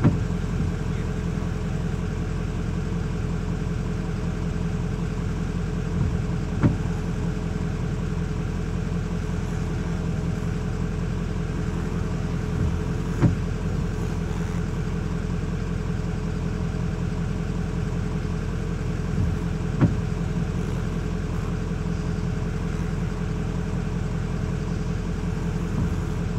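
An engine idling at one steady, unchanging pitch, with a short click repeating about every six and a half seconds.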